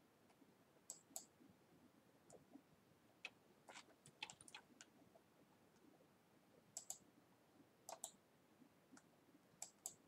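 Faint computer mouse clicks, scattered and several in quick pairs, with a small cluster about four seconds in.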